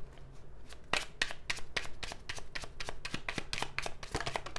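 Tarot cards being shuffled by hand, a rapid run of papery card flicks.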